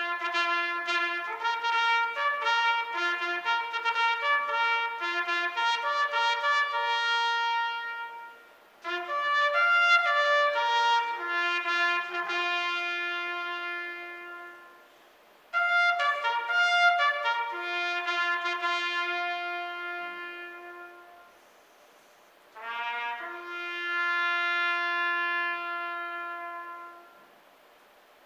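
Solo trumpet playing a slow military bugle call: runs of quick notes that settle into long held notes, with brief pauses between the phrases.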